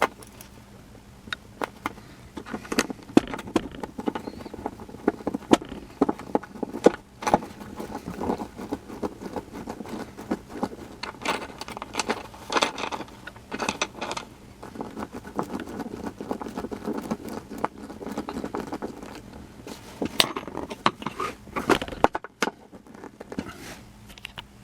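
Small metal parts clinking and rattling, with irregular clicks and knocks, as a small stainless steel L bracket is handled and screwed onto a wooden post.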